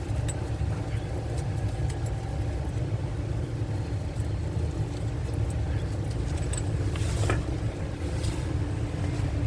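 Engine idling steadily with a low rumble, and a few light clicks and a short scrape about seven seconds in.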